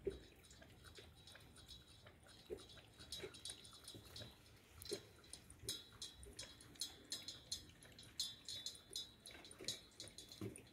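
Dog eating from a metal bowl: faint chewing and crunching, with quick clicks that grow thicker after the first few seconds.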